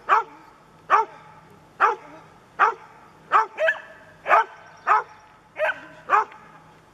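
A dog barking repeatedly: about ten sharp barks, a little under a second apart.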